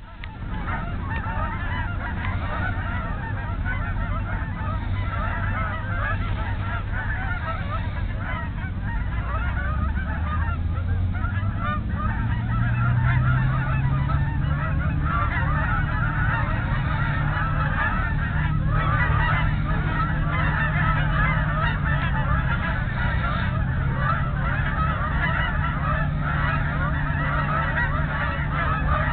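A large flock of Canada geese honking and calling continuously, many birds overlapping in a dense chatter. A low steady hum runs underneath, stepping up in pitch about twelve seconds in.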